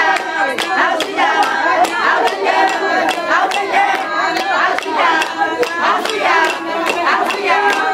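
Hand clapping on an even, steady beat, with a group of voices singing over it.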